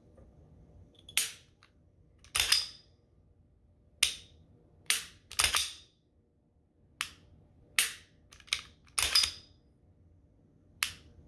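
A custom Glock 23 being dry-fired and reset after reassembly: sharp metallic clicks from the aftermarket trigger breaking, with the slide worked to reset it. About a dozen clicks at irregular spacing, several in quick pairs.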